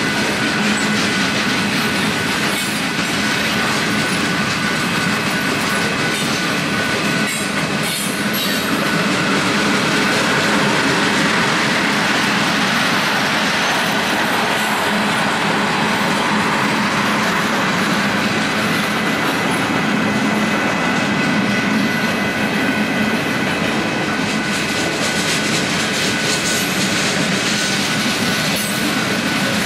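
Union Pacific manifest freight train of covered hoppers, tank cars and autoracks rolling steadily past, the cars clattering over the rails with a thin, steady wheel squeal.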